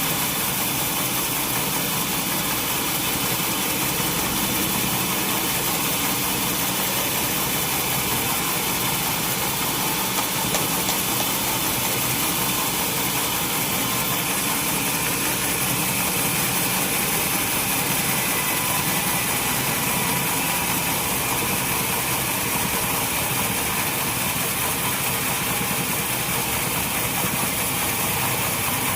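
Sawmill machinery running steadily, with an even engine-like hum and hiss that does not change.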